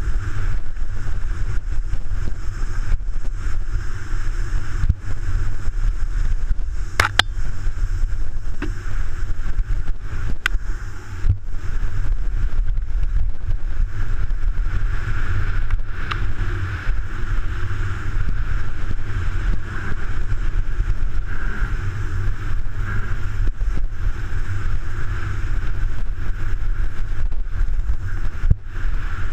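Mountain bike riding fast down a dirt singletrack: a steady wind rumble on the camera's microphone with tyre and frame rattle, and sharp knocks over bumps, the loudest about 7 and 10 seconds in.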